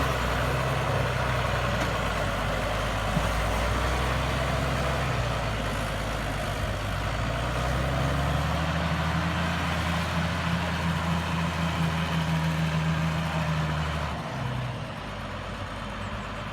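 New Holland TM155 tractor's six-cylinder diesel engine running steadily while ploughing. Its note shifts about halfway through, then drops and quietens abruptly near the end.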